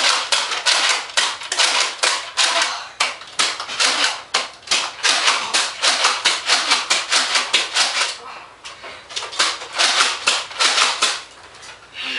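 Nerf dart blasters being primed and fired in quick succession: a rapid run of sharp plastic clacks, several a second, that thins out after about eight seconds.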